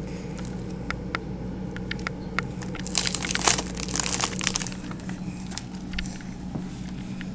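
Food packaging crinkling and crackling as a baby grabs and handles it, with scattered clicks and a louder run of crinkling about three to four seconds in, over a steady low hum.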